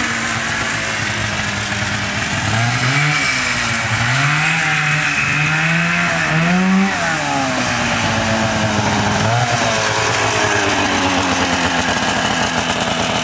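Rotax 377cc twin-cylinder two-stroke engine (from a 1987 Ski-Doo Safari snowmobile) running, revved up and let back down about four times in quick succession, then dropping back to a steadier, lower running note.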